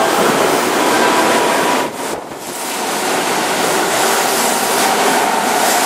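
Keihan 9000-series electric train (a VVVF-inverter unit) running past close along the platform: a dense rushing noise of wheels on rails and running gear, with faint steady tones above it. The noise dips briefly about two seconds in.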